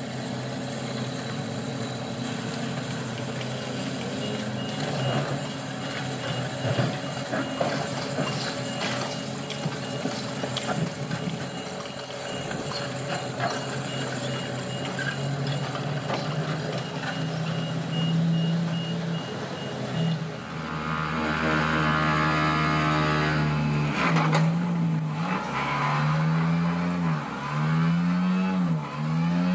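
Diesel excavator engines running steadily. About two-thirds of the way through, an excavator-mounted vibratory pile hammer gripping a steel pile starts up, louder than the engines, its hum repeatedly swinging down and back up in pitch.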